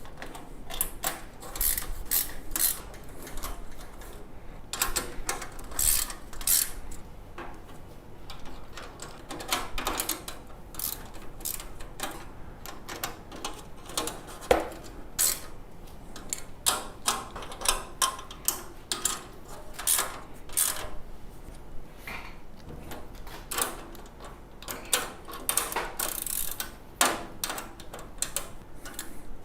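Bolts on the compost tumbler's frame being tightened with a wrench: irregular runs of sharp clicks and metallic clinks.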